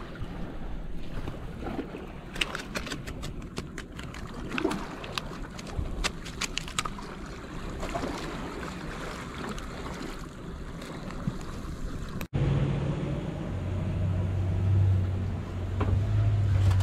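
Water washing against shoreline rocks, with many short clicks and rustles as a flounder is handled over a mesh keeper bag. About twelve seconds in the sound cuts abruptly to a steady low hum.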